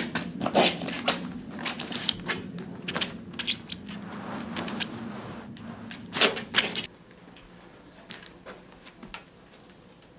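Rustling and crackling of a large sheet of projection-screen material and foam packing being handled, with many sharp clicks and taps. About seven seconds in it drops suddenly to a quieter stretch with a few light clicks.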